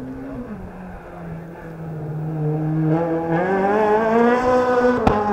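Rally car engine revving hard as it climbs, its pitch rising and falling through the gear changes and growing steadily louder as the car approaches. A sharp click near the end.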